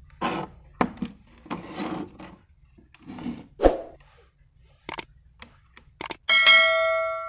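Subscribe-button animation sound effect: two quick mouse clicks, then a bright bell ding that rings out and fades over about a second and a half. Before it, a few soft rustles and knocks from the multimeter being handled.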